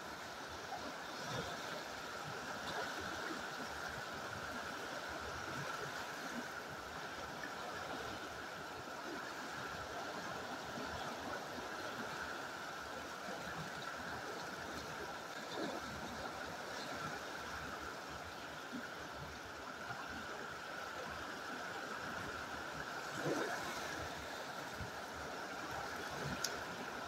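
Fast river water rushing steadily over rocks, with a couple of brief knocks near the end.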